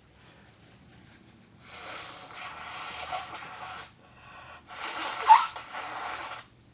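A person blowing their nose hard, twice, each blow lasting about two seconds; the second has a sharp, loud peak partway through.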